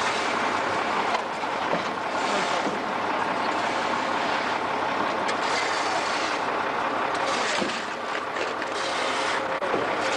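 A truck engine running steadily, with metal shovels scraping and scooping wet flood mud off cobblestones.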